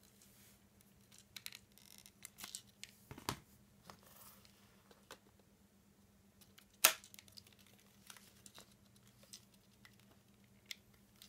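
Hard plastic parts of a toy baton being handled and fitted together: a blue star-shaped head is pushed onto the handle. Scattered light clicks and rubbing, a knock about three seconds in and one sharp snap about seven seconds in.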